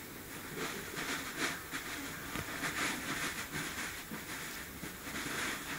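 Bean bag filling rustling and crunching in irregular surges as a small dog shifts and digs about on it to settle.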